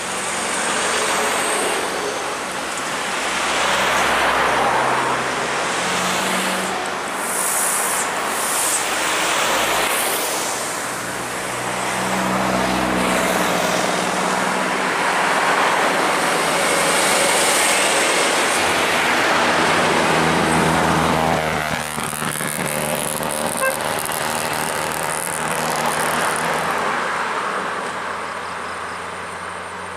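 Heavy diesel trucks and cars passing close by in a steady stream, engine drone and tyre noise swelling and fading as each vehicle goes by, with one engine's pitch falling about two-thirds of the way through.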